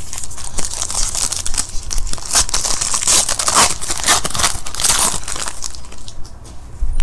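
A foil trading-card pack being torn open and its wrapper crinkled as the cards are slid out: a dense, loud crackling that eases off about six seconds in.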